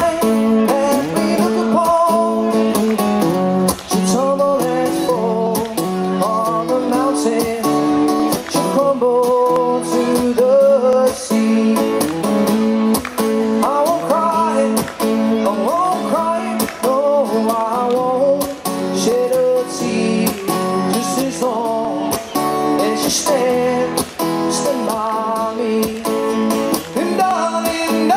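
Live acoustic duo: two acoustic guitars strummed together, with a man singing into a microphone, amplified through the stage PA.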